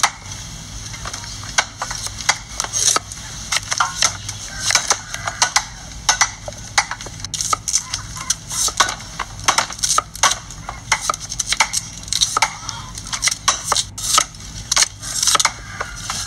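Knives and a cleaver chopping vegetables on wooden chopping boards: quick, irregular chops, several a second.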